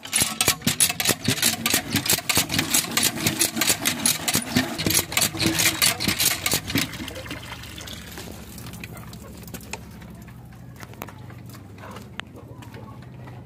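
A stream of water pouring into a plastic bucket, splashing loudly as the bucket fills. The pouring stops about seven seconds in, leaving a faint low hum.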